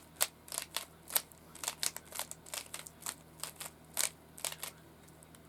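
Rubik's cube being turned quickly by hand. Its plastic layers give a rapid, irregular run of sharp clicks that stops about four and a half seconds in.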